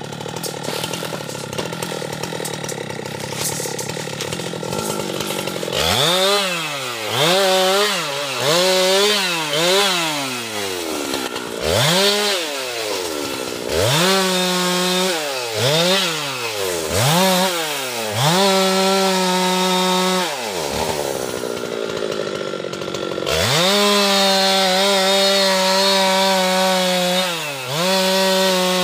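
Husqvarna two-stroke chainsaw running at low speed, then revved up and down in a string of short bursts, and about three-quarters through held at steady full throttle with one brief dip near the end.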